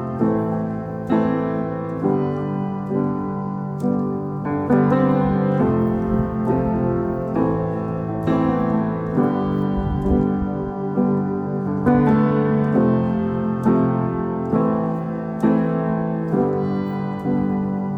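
Background music: a piano playing steadily, with a new note or chord about every second.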